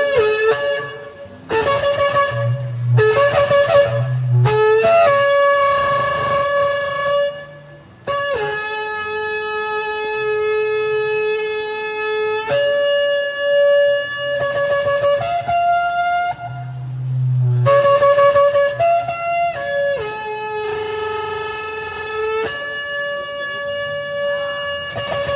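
Shofar (ram's horn) blown in a series of blasts: a few short calls at first, then long held notes that step up and down between a lower and a higher pitch.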